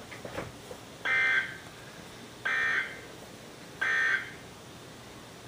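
Emergency Alert System digital data bursts, three short buzzing squawks about a second and a half apart: the end-of-message code that closes a severe thunderstorm warning.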